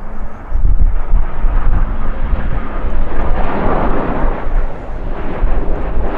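Gusting wind buffeting the microphone with a heavy, uneven rumble, over the steady noise of a passing jet airliner's engines that swells about three to four seconds in.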